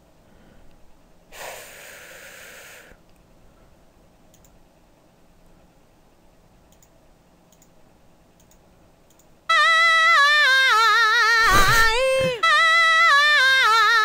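A sung vocal sample auditioned in Ableton Live's browser: about nine and a half seconds in, a loud voice starts with wide, wavering vibrato and keeps going. Near the start, a short burst of hiss-like noise lasts about a second and a half.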